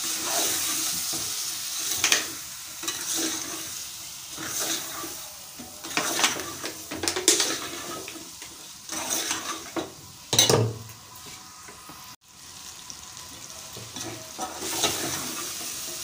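A metal ladle stirring and scraping meat, onions and tomatoes with ground spices in an aluminium pot, with irregular scrapes and knocks against the pot over the steady sizzle of frying oil. This is the bhuna stage, the spices being fried into the meat.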